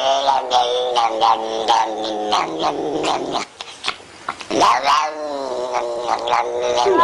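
An animal screaming: long, drawn-out wailing calls with a short break a little past halfway, then another long call.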